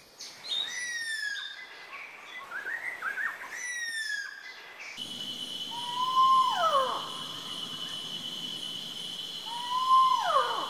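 Spot-bellied eagle owl calling: two loud wailing screams, each rising briefly and then sliding steeply down, about four seconds apart, over a steady high insect drone. These come after about five seconds of whistled, downward-slurred bird calls.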